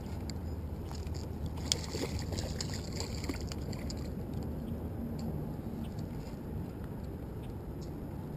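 Hooked channel catfish splashing and thrashing at the water's surface near the bank, with the busiest splashing about two seconds in, over a steady low rumble of wind on the microphone.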